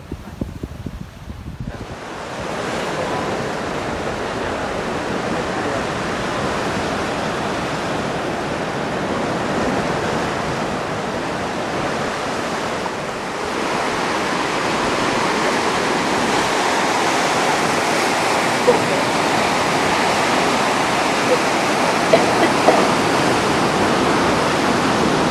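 Steady rushing of sea water, waves and churning boat wake, setting in about two seconds in and swelling slightly about halfway through.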